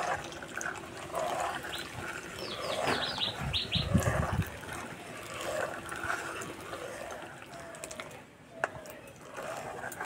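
Sour whey trickling in a thin stream from a plastic mug into hot milk in an iron karahi, stirred with a steel ladle as the milk curdles into chhena. A few short high chirps come about three seconds in, a dull knock just after, and light ladle clicks against the pan near the end.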